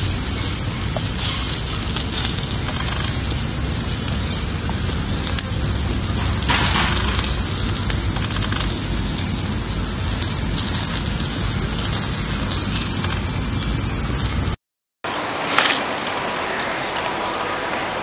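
Insects droning with a steady high-pitched buzz over an even rushing noise. It cuts off suddenly about two-thirds of the way in, and after a brief silence a quieter stretch follows with a few light clicks.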